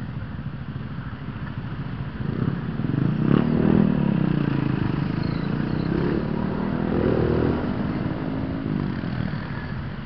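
Motor scooter engines running in slow traffic, getting louder about two and a half seconds in as they rev and pull away, their pitch rising and falling over the next several seconds.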